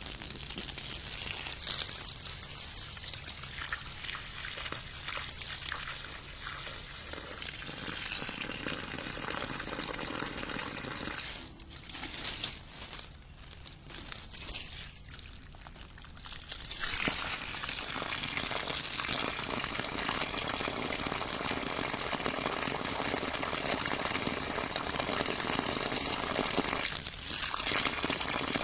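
Water rippling and gushing in a continuous wash of noise that turns quieter and choppy a little before the middle, then returns steadier and somewhat louder for the rest.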